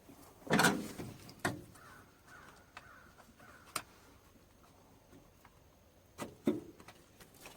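Spring squeeze clamps and a rubber crankcase breather hose being worked off their fittings: a few harsh squeaky scrapes, the loudest about half a second in, and several sharp clicks.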